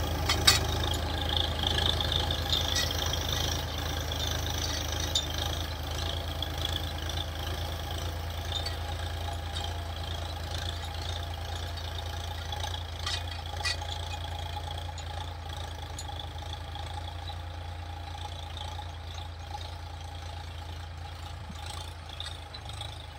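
Massey Ferguson 7250 tractor's three-cylinder diesel engine running steadily while pulling a mulch-film laying implement, slowly growing fainter as the tractor moves away. A few short clicks are heard near the start and about halfway through.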